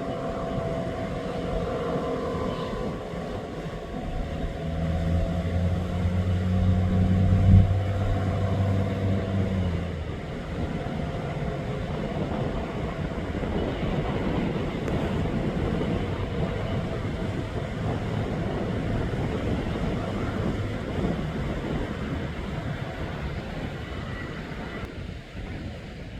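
ACA Penetrator-50 tornado siren winding down after its alert signal: its two-tone wail slides slowly lower and fades over the first ten seconds or so. Partway through there is a low steady hum lasting about five seconds, with a single knock in its middle. Then only a steady rush of wind and traffic noise remains.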